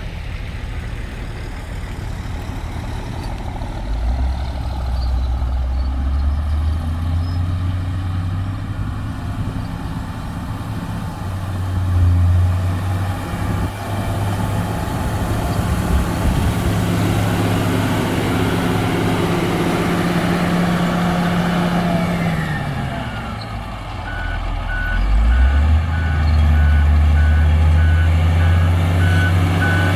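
Komatsu GD655 motor grader's diesel engine working, its pitch rising and falling with load. Near the end the engine dips, then picks up again as the reversing alarm starts beeping steadily.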